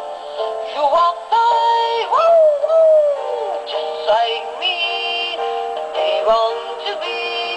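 Animatronic plush toy dog singing, with wordless, synthetic-sounding vocal notes that slide up and down over backing music. There is a long falling glide about two seconds in.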